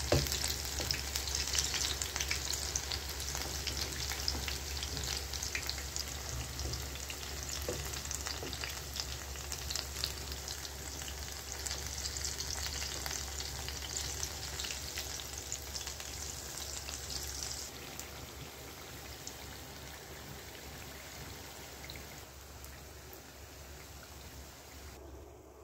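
Vegetable pakoras deep-frying in hot oil in a pan, a steady crackling sizzle, with a wooden spatula now and then scraping and turning them. The sizzle drops off abruptly about two-thirds of the way through and grows fainter near the end.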